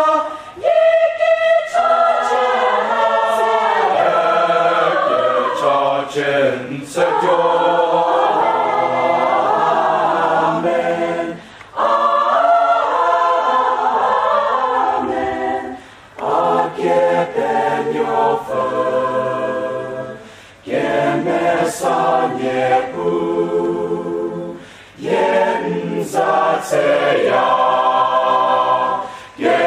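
Large mixed choir of men's and women's voices singing, in long phrases broken by short pauses about every four to five seconds.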